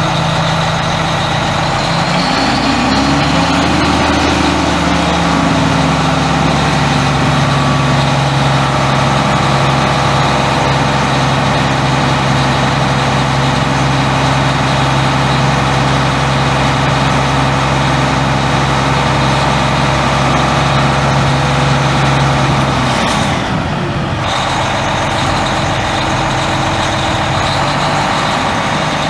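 Detroit Diesel Series 60 six-cylinder diesel of a Terex TA35 haul truck running. It revs up about two seconds in, holds a steady raised speed for about twenty seconds, then drops back to a lower idle near the end.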